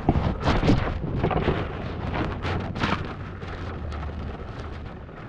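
Wind buffeting the camera microphone, with rattling knocks and crackles as the four-wheeler goes down the hill, and a low steady rumble through the middle.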